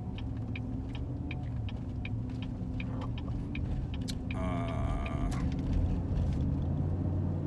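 Car cabin noise from the engine and tyres on the road, with a turn signal clicking about twice a second. About four and a half seconds in, a pitched tone sounds for about a second.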